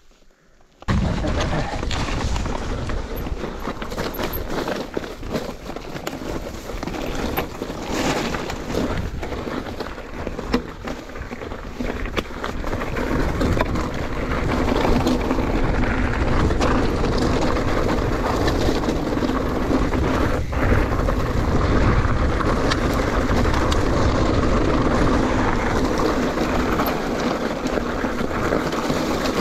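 Mountain bike being ridden along a trail: tyres rolling and rattling over the ground, with wind rumbling on the microphone. It starts abruptly about a second in and gets louder about halfway through.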